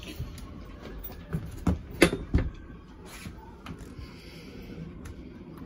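A quick run of four sharp knocks on a boat's planked cockpit deck, the loudest about two seconds in, over faint steady background noise.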